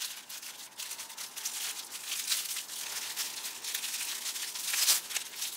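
Thin plastic strips crinkling and rustling as hands pull and knot them, in quick irregular crackles with a louder rustle near the end.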